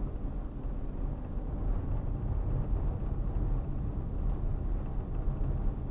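Steady low rumble of a Fiat Uno's engine and tyre noise while driving, heard from inside the cabin.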